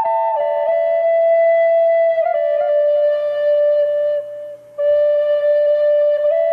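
Solo flute playing a slow melody of long held notes that step gradually down in pitch, with a brief pause about two-thirds of the way through.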